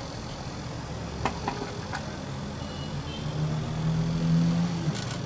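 A few light clicks from parts of a stripped-down HP LaserJet P2015 laser printer being handled during disassembly, over a steady low mechanical hum.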